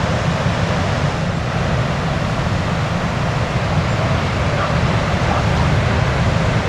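Steady rush of surf breaking on a sandy and rocky beach, with a low flutter of wind on the microphone underneath.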